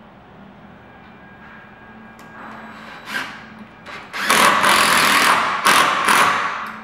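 DeWalt cordless drill driving a screw through a pre-drilled attachment hole into the door frame's top rail. A short burst about three seconds in, then the drill runs under load in a few long pulls with brief pauses until just before the end.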